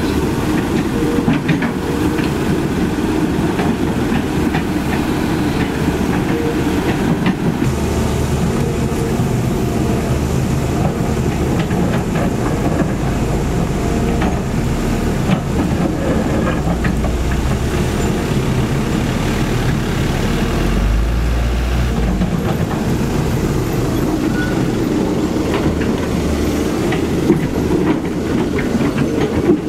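CAT 320D2 hydraulic excavator's diesel engine working under load while its steel bucket scrapes and breaks up worn asphalt, with steady clattering and scraping of asphalt chunks. A heavier low rumble comes in about twenty seconds in.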